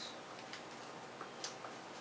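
A few faint, short clicks over quiet room noise.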